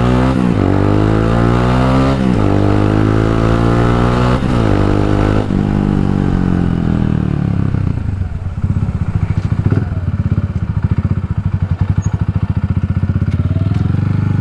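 Italika 250Z motorcycle's single-cylinder engine pulling away in first and revving up through the gears, its pitch rising and dropping back at each shift, about two and four and a half seconds in. From about eight seconds in it eases off to a low, steady pulsing beat.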